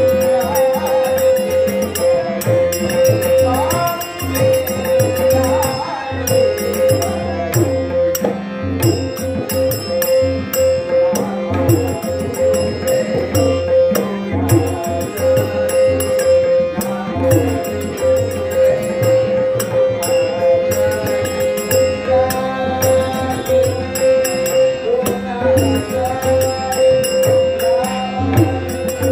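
Dashavatar thumri music played live: a man sings over a harmonium holding a steady note, with tabla accompaniment and small brass hand cymbals (jhanj) ringing in rhythm.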